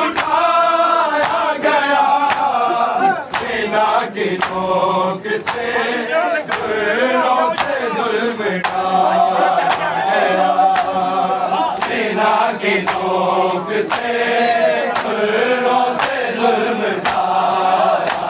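Men's voices chanting an Urdu noha, a Shia lament, together, over a steady beat of sharp slaps about every two-thirds of a second: the mourners' rhythmic chest-beating (matam) that keeps time with the lament.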